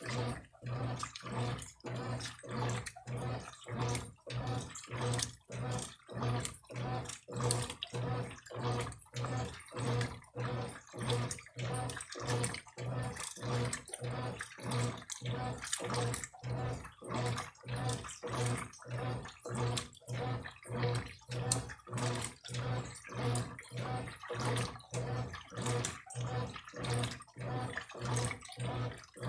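Brastemp Eletrônica washing machine agitating a load of clothes in water: rhythmic sloshing strokes about twice a second over a steady motor hum.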